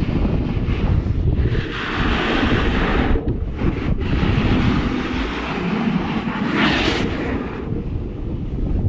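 Wind buffeting the microphone of a camera moving fast downhill, with snow hissing and scraping under snowboard edges; the hiss swells twice, about two and seven seconds in.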